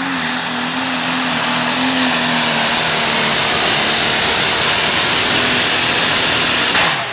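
Pro Stock pulling tractor's turbocharged diesel engine running flat out under full load while dragging the sled, growing gradually louder, then cutting off abruptly near the end as the throttle is shut at the end of the pull.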